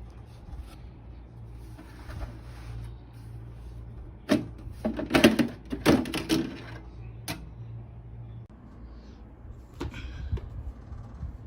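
A series of short knocks and rattles, bunched about four to seven seconds in with a few more near the end, over a steady low hum.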